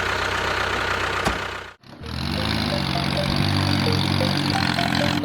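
An engine or motor running steadily. It cuts out abruptly just before two seconds in, then comes back as a steadier, even hum.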